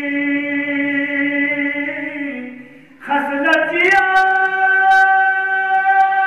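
Unaccompanied male singing of a Balti qasida, a devotional chant in long held notes. The singing fades out about two and a half seconds in, then comes back with a note that slides up and is held.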